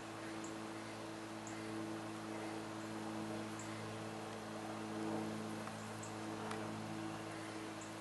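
A steady low hum made of several held tones, with faint, short, high-pitched chirps about once a second over it.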